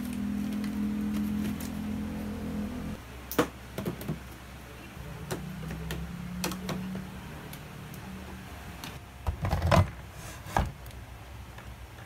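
Groceries and plastic containers being put onto the wire shelves of a small refrigerator: scattered knocks and plastic clatters, the loudest a quick cluster about nine and a half seconds in. A steady low hum runs under the first three seconds, then stops.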